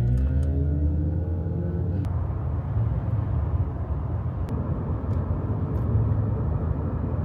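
Steady road and tyre rumble inside a car driving along a highway. It follows a rising pitched tone that cuts off abruptly about two seconds in.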